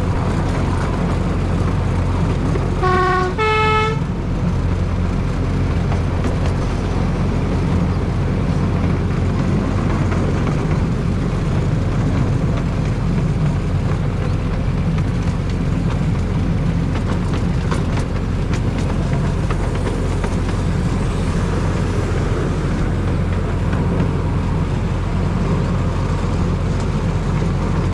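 Narrow-gauge locomotive with its engine running steadily, giving two short toots on its horn about three seconds in, the second a little higher.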